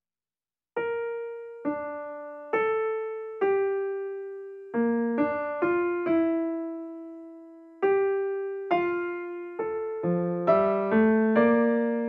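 Solo piano background music: after a moment of silence, slow single notes are struck one at a time, each ringing and dying away, and lower notes come in faster near the end.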